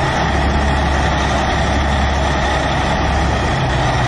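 Heavy diesel engine of a loaded log truck running steadily.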